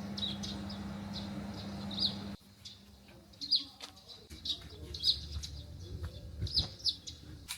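Small birds chirping, short high chirps repeating every second or so, over a steady low hum that cuts off abruptly about two and a half seconds in.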